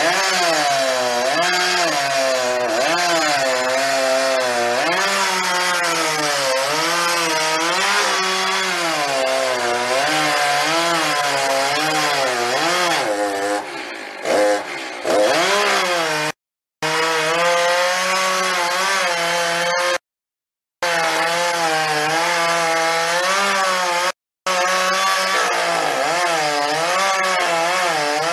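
Gas chainsaw carving into a log, its engine pitch wavering up and down as the cut loads and frees it. About halfway through it drops briefly and sweeps in pitch, and the sound cuts out to silence for a moment three times.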